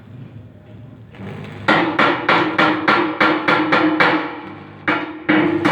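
Blacksmith's hammer striking metal on an anvil in a quick, even run of ringing blows, about three a second. The blows begin a couple of seconds in, pause briefly, and start again near the end.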